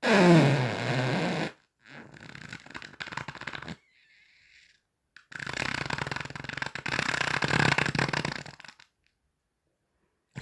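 Three farts in a row: a loud first one that drops in pitch over about a second and a half, a quieter, rougher second one, and a long buzzing third lasting about three and a half seconds.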